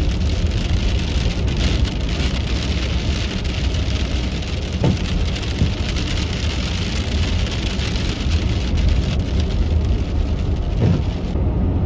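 Wet snow and sleet hitting the windshield and roof of a moving minivan, over steady tyre and road noise, with the wipers sweeping the glass.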